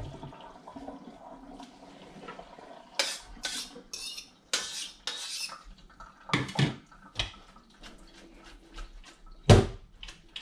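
Utensil and plastic bowls clattering at a kitchen sink as soaked instant noodles are stirred and handled: an irregular string of knocks and clicks starting about three seconds in, the loudest near the end.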